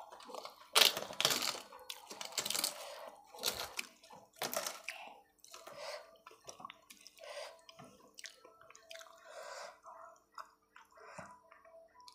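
A hand mixing rice with runny lentil dal and crumbled fried papad on a steel plate: wet squishing with crackles, loudest about a second in and tailing off toward the end.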